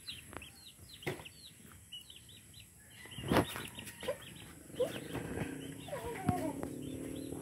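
Chickens peeping and clucking: a quick, steady run of short high chirps, with lower clucking in the second half and a few soft knocks.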